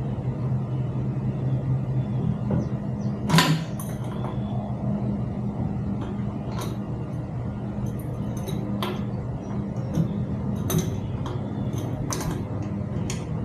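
Parts and tools being handled during bicycle assembly: scattered clicks, knocks and light clatter, the loudest about three and a half seconds in. A steady low hum runs underneath.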